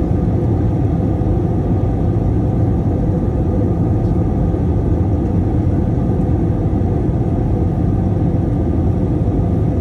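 Steady, loud low rumble of a vehicle in motion, unchanging throughout.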